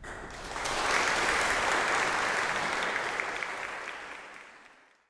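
Audience applauding, swelling to full strength within about a second and then fading away near the end.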